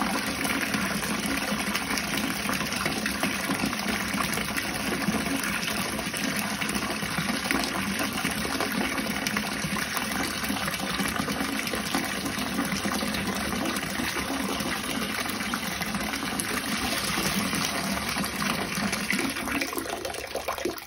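Bathtub faucet running steadily, gushing water into the tub as it fills, and stopping near the end.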